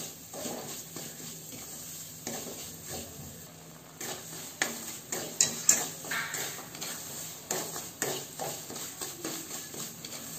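Wooden spatula stirring and scraping semolina roasting in ghee around a metal kadhai, with irregular scrapes and knocks against the pan.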